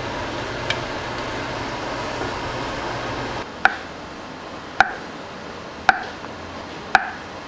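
A steady hiss from the clay pot on the gas stove. A few seconds in, a kitchen knife slices porcini on a wooden cutting board, giving four sharp knocks about a second apart as the blade meets the board.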